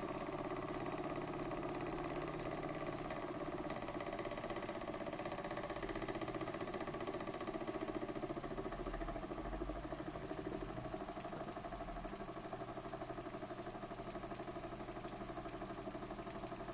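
Burnac Vulcan model steam engine running steadily under steam: a quiet, rapid, even beat from the small engine, with a faint hiss of steam.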